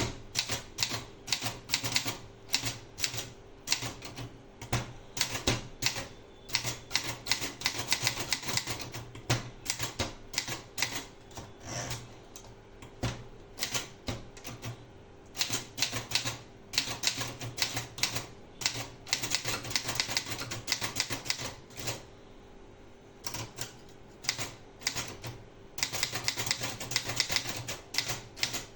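Remington Sperry Rand typewriter being typed on: rapid key strikes in runs with short pauses between, over a faint steady hum.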